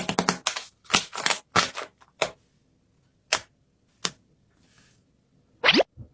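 Paper being handled in an unboxing: a quick run of sharp crinkles and crackles, then a couple of single clicks, and a short sliding swish near the end.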